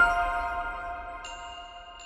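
Short chiming music sting: the last note of a quick rising run of bell-like struck tones sounds at the start, then rings on and fades away. A higher note is added a little over a second in.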